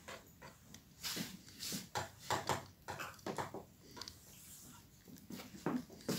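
Chalk writing on a blackboard: a quick, irregular run of short taps and scrapes as symbols are written.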